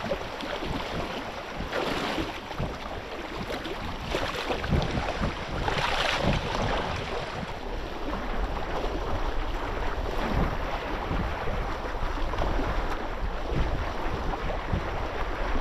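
Wind buffeting the microphone over a steady wash of water, with louder surges of noise about two seconds and six seconds in.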